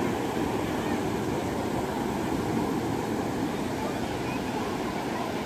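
Steady rush of sea waves breaking on a sandy beach.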